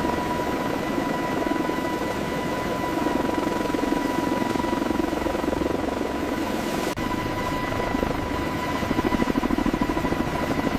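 Steady mechanical drone with a constant high whine, its level fluttering rapidly toward the end.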